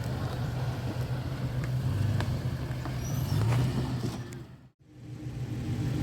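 Off-road vehicle engine running at low revs, with a few light clicks and knocks over it. The sound drops out briefly near the end, then the engine hum comes back.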